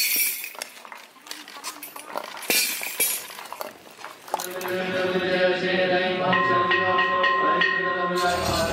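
For about four seconds there are sharp clinks and clacks. Then a group of Buddhist monks starts a sustained sutra chant, and a temple bowl bell rings a clear held tone over it a little past halfway.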